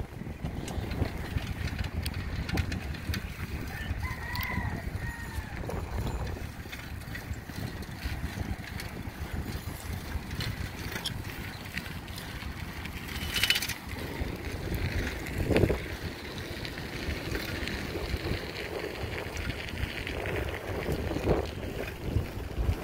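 Wind rushing over a phone's microphone while riding a bicycle, a steady low rumble. About four seconds in a short call rises and falls.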